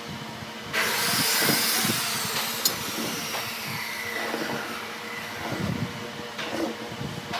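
Wooden blocks being set down on a workbench with soft knocks, over a workshop machine's hissing noise that comes in suddenly about a second in, its whine slowly falling in pitch.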